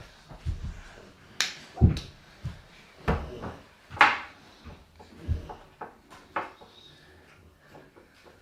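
Kitchen containers and utensils being handled and knocked down on a surface: a string of irregular clunks and clatters, loudest about two and four seconds in, fainter toward the end.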